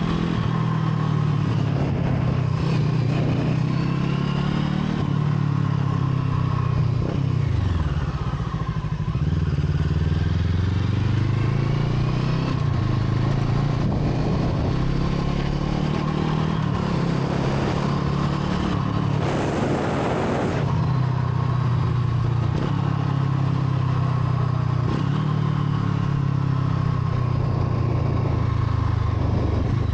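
Brixton Crossfire 500's parallel-twin engine running under way, its pitch rising and falling repeatedly with throttle and gear changes. A brief rushing burst of noise comes about twenty seconds in.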